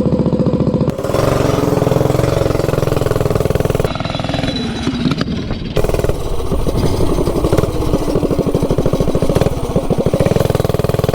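Stage 3 single-cylinder clone minibike engine revving. It picks up about a second in, drops off with a falling note around four to five seconds, then pulls again. The Nibbi carburettor has just been richened, and the throttle response is pretty snappy.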